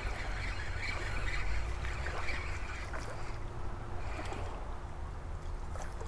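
Water splashing as a hooked bass thrashes at the surface of a shallow creek, over a steady low rumble.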